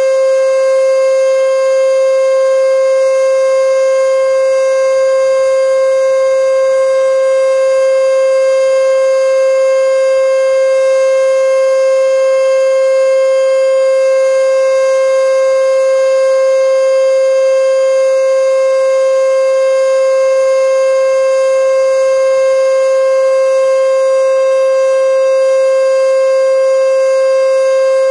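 E.D. Bullard 3H27 "Weltex" outdoor warning siren sounding the Full Alert signal: one loud, steady tone held at full pitch, with no rise or fall.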